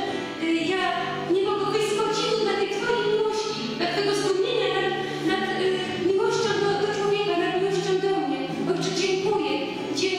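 A woman singing worship into a microphone in long, held notes, with other voices singing along.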